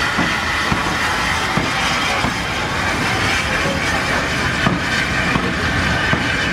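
Small steam tank locomotive and its coaches running past at low speed, a steady rumbling noise with scattered clicks of wheels crossing rail joints.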